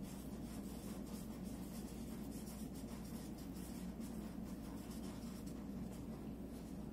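Felt-tip markers scratching faintly on paper as small circles are colored in, over a low steady room hum.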